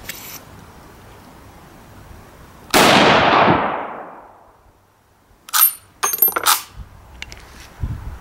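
A single loud shot from a Budapest M.95 straight-pull rifle in 8mm, its report rolling away over about two seconds. About three seconds later, a few sharp metallic clacks as the straight-pull bolt is cycled, with a bright ringing clink of metal.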